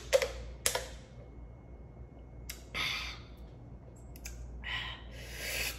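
Quick gulps of water from a plastic bottle, then a few breathy exhales through the mouth, a reaction to the burn of sriracha.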